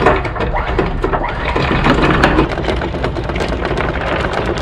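Electric anchor windlass running, its motor humming as 10 mm galvanised anchor chain clatters rapidly over the gypsy.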